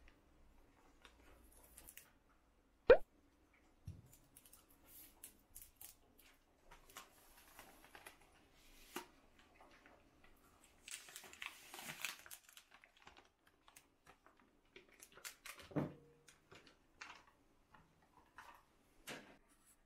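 Food packets being handled on a kitchen counter: small clicks and rustles, one sharp knock about three seconds in, and crinkling and tearing of the plastic wrapper around the middle as the curd cheese is unwrapped. A dull thud comes a few seconds later, as the block of curd cheese drops into the glass bowl.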